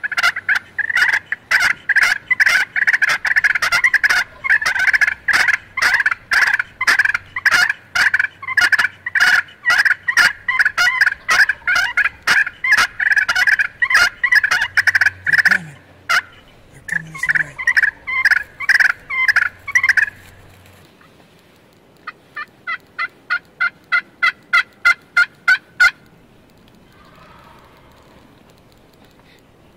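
Fighting-purr turkey calling: rapid, rasping purrs run together almost without a break, imitating turkeys fighting, for about twenty seconds. After a short pause comes a run of about a dozen evenly spaced notes that grow louder and then stop.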